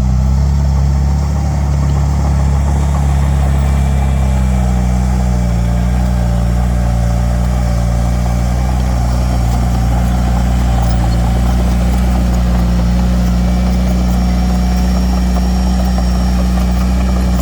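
Heavy diesel engine of earthmoving equipment running steadily at a constant speed.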